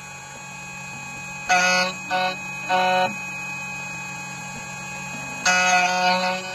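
CNC key cutting machine's spindle motor running with a steady hum. A high-pitched whine rises over it four times as the spinning cutter bites into the key blank while cutting an NSN14 Nissan key: three short bites close together, then a longer one near the end.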